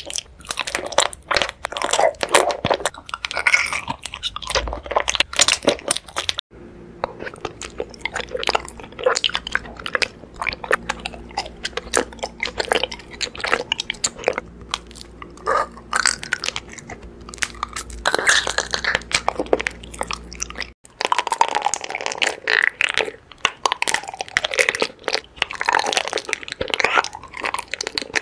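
Close-miked biting and chewing of raw honeycomb: a dense, irregular run of crunching and crackling clicks. The background changes abruptly twice, with a faint low hum under the middle stretch.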